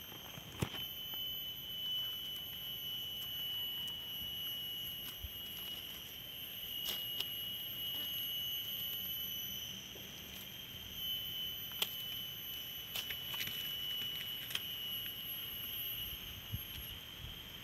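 A steady high-pitched whine held at one pitch with fainter overtones above it, with scattered faint clicks and rustles.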